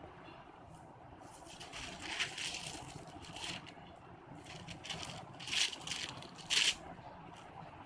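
Paper rustling as the large pages of a sketchbook are turned and handled, in several short bursts, the sharpest one near the end.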